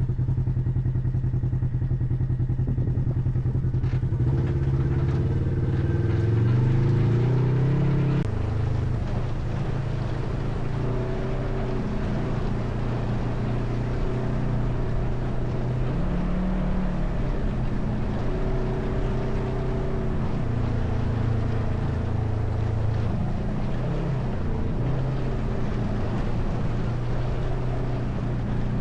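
ATV engine running under way. Its pitch climbs for a few seconds, drops sharply about eight seconds in, then runs on with small rises and falls in pitch.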